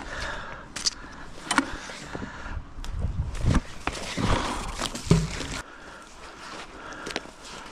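Scattered small knocks, clicks and rustling as a magnet fisher handles his rope and the scrap iron stuck to his neodymium magnet, with some low rumble. It quietens after about five and a half seconds.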